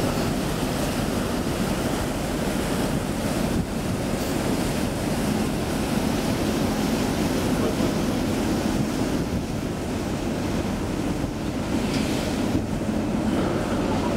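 Steady rush of churned sea water from the wake and bow wave of a pilot boat running alongside a moving ship, mixed with wind buffeting the microphone.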